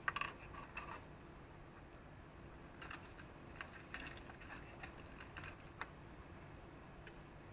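Faint, scattered light clicks and rattles of bundled jumper wires and their plastic pin connectors being handled and set into a breadboard station.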